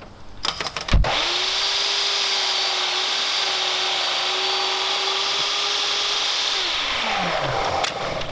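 Portable table saw starting up about a second in and ripping through a sheet of MDF with a steady motor whine. Near the end it is switched off and its pitch falls as the blade winds down.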